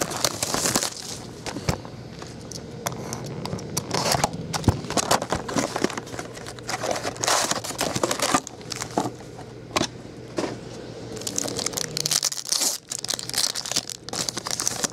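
Plastic and foil card packaging crinkling and tearing as a box of trading cards is opened and its packs are ripped open. The noise comes in quick irregular crackles throughout.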